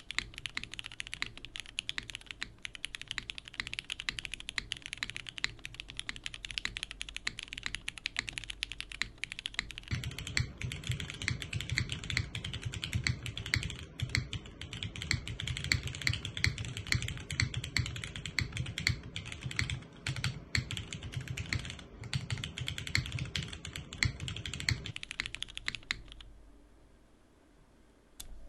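Continuous fast typing on a Merisi 500C/M tenkeyless mechanical keyboard with Cherry MX2A Nixie linear switches in a polycarbonate plate, under doubleshot keycaps, each keystroke a crisp clack. About ten seconds in, the keystrokes take on a much deeper, fuller low end as the recording switches microphone. Near the end the typing stops and the sound falls away.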